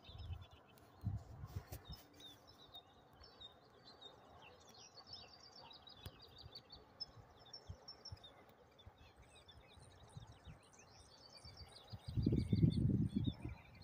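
Small songbirds chirping and twittering in a stream of short high notes. Near the end a louder low rumble buffets the microphone.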